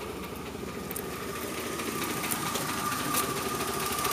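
Engine under a cab doghouse cover idling, growing louder toward the end as the open doghouse is approached. The engine is not running right: the owner knows the piston rings are worn and thinks the fuel injectors are to blame.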